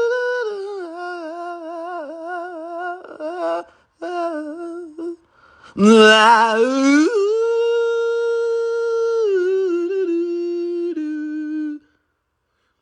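Arctic wolf howling: two long, pitched howls. The first sags and wavers in pitch. The second, about 6 s in, rises steeply, is held, then steps down and wavers before stopping near the end.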